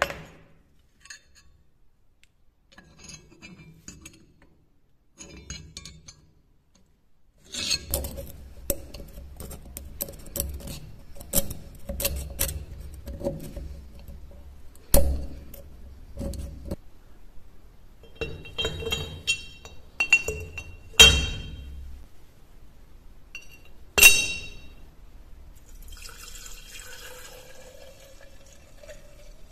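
Metal pieces of a rusty knife clicking and knocking as they are handled, then a few ringing clinks of metal against a glass jar. Near the end, liquid pours into the glass jar, its pitch rising as it fills.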